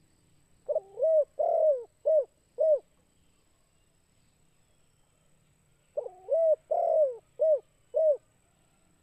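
Spotted dove (tekukur) singing its 'kuk 2' song: two phrases about five seconds apart, each a few short coos, one longer drawn-out coo, then two short closing coos.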